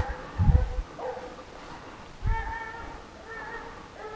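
Scent hounds baying, repeated drawn-out calls given as they run a fox's trail. Low thuds on the microphone about half a second and two seconds in.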